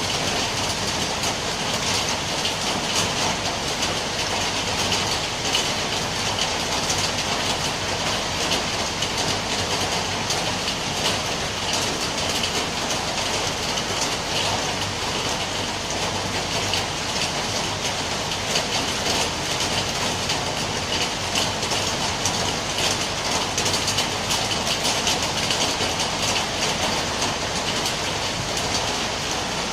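Steady rain falling, a dense, even patter of many small drop hits.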